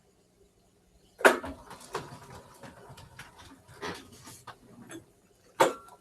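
Handling noise: a loud knock about a second in, irregular clicks and rustles, then another loud knock near the end.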